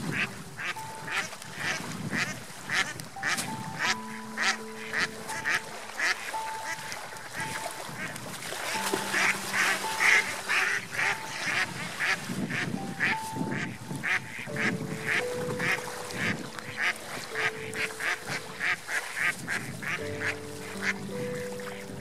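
Mallard ducks quacking in a quick, steady run of calls, about two or three a second, louder and denser around the middle, over soft background music with long held notes.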